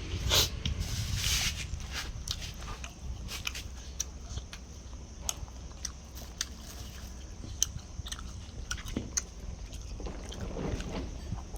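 Close-up eating sounds of a person biting and chewing chicken: a couple of louder crunches in the first second or so, then many small sharp mouth clicks and chewing noises over a low steady hum.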